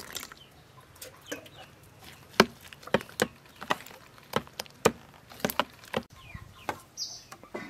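A metal spoon stirring a runny raw fish-egg mixture in a stainless steel bowl, knocking against the bowl in a string of short, sharp clicks. A chicken clucks in the background.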